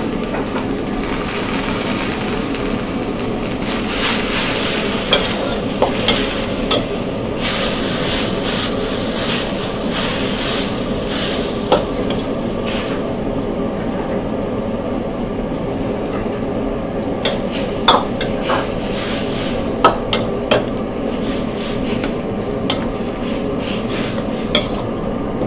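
Pad thai rice noodles, chicken and egg sizzling in a hot wok just after stock has gone in, with a steady frying hiss. A metal ladle stirs and tosses them, scraping and clinking against the wok at irregular intervals.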